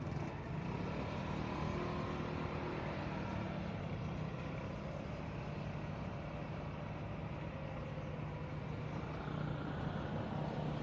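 A steady low engine drone over a constant outdoor hiss, with no change through the cut from the bridge view to the patrol boats.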